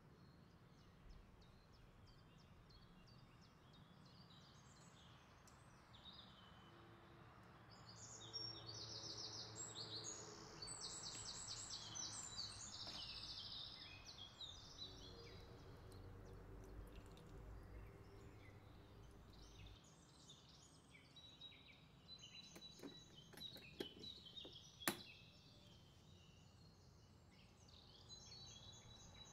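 Faint birdsong: high chirps and quick trills from small birds, busiest about 8 to 14 seconds in, with a few light clicks and one sharper tap about 25 seconds in.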